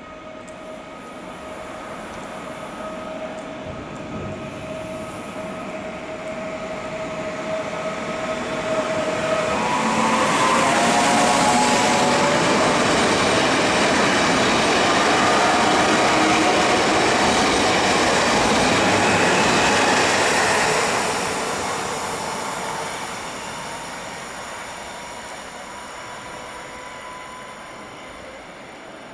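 Koleje Śląskie Pesa Elf 27WEb electric multiple unit approaching and passing along the platform. A steady whine drops in pitch as the train comes level, about ten seconds in. The noise of its wheels on the rails is loudest for about ten seconds, then fades as it runs away.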